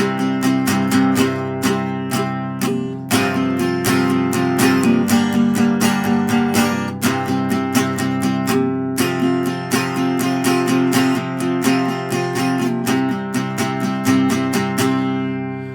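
Acoustic guitar strummed in a steady rhythm as an instrumental break between sung verses, dying away just before the end.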